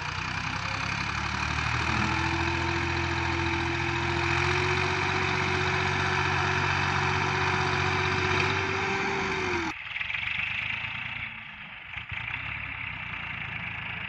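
Massey Ferguson 260 tractor's diesel engine working hard under load, hauling a heavily loaded trolley up a sandy slope, with a steady whine over the engine note. The sound cuts off abruptly about ten seconds in and a quieter engine hum follows.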